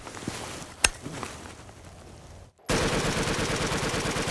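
AR-style semi-automatic rifle fitted with a bump stock, bump-firing: a single sharp crack about a second in, then, near the middle, a rapid unbroken burst of shots lasting about two seconds. The burst sounds close to machine-gun fire because recoil bumps the trigger into the shooter's stationary finger for each round.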